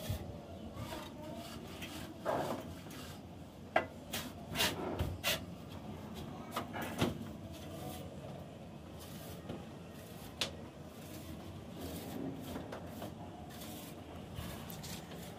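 A mason's steel trowel working cement plaster onto a ceiling: scraping strokes, with a run of sharp clicks and taps from about four to seven seconds in and one more near ten seconds.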